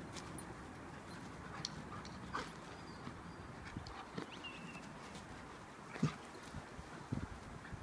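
Dogs play-wrestling and padding about on artificial turf: faint scattered taps and scuffles of paws and bodies, with a soft thump about six seconds in.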